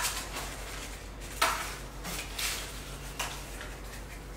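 A few light clicks and rustles as foil cupcake liners are pulled apart and set into a cupcake pan.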